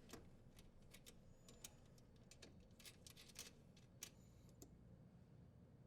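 Near silence with faint, irregular clicks and light scrapes of small parts being handled: the strain relief nut on a dishwasher's power cord being threaded and tightened in its junction box.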